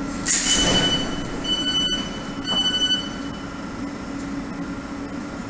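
Electric multiple-unit train standing at a platform with its doors opening: a short hiss, then three high electronic door beeps over about three seconds, over the steady hum of the train.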